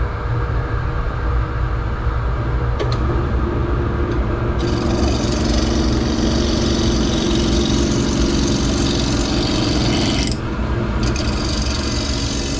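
Wood lathe spinning up a large square glued-up wood blank about three seconds in, then a turning gouge cutting into the spinning corners with a loud rough shearing noise. This is the roughing stage, taking the square blank down toward round. The cutting stops for a moment near the end and starts again.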